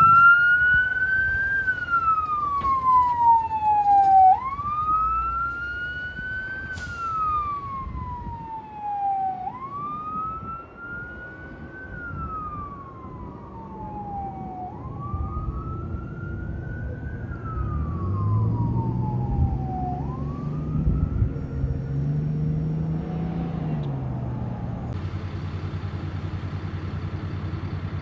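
Fire tanker truck's siren wailing as the truck drives off. Each wail rises quickly and falls slowly, about five seconds apart, growing fainter with each cycle. Later an engine revs up and accelerates, then a steady engine hum follows.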